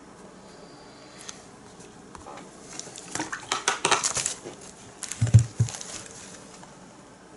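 Painting supplies being handled on a worktable: a run of light clinks and rattles, then two dull knocks about five seconds in, the loudest part.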